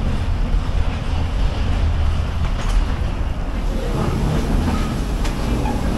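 Steady low machinery rumble inside an airport jet bridge leading to a parked airliner, with a few faint clicks over it.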